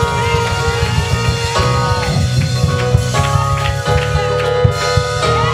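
Church band playing: sustained keyboard chords over a held bass line, with a drum kit hitting steadily underneath.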